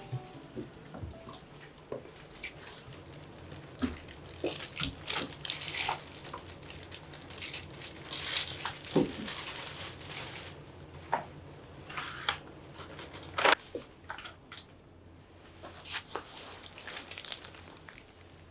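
Paper and plastic shopping bags rustling and crinkling as they are handled and put down, in irregular bursts with a few sharp knocks and clicks.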